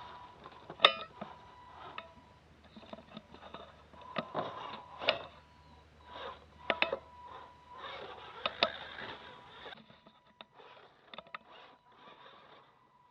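Radio-controlled Clodbuster crawler truck driving: a thin steady electric motor whine under scattered clicks, knocks and clatters from the tires and chassis, the sharpest knock about a second in. A low hum drops away near the end.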